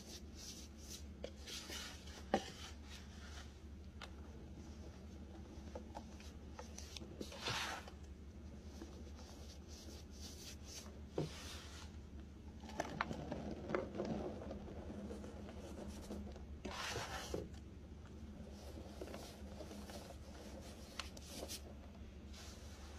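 Hands crushing and rubbing soft, powdery dyed baking soda in a glass dish: quiet scratchy crumbling and sifting, with several louder crunches and a few sharp crackles along the way.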